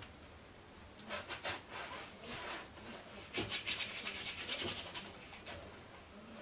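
Paintbrush loaded with oil paint scrubbing across a stretched canvas in short scratchy strokes: a few strokes about a second in, then a quicker, denser run from about three to five and a half seconds.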